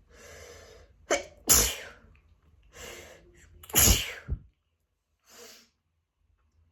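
A person sneezing twice from autumn allergies, each loud sneeze after a quick in-breath, the second about two seconds after the first, then a short breath.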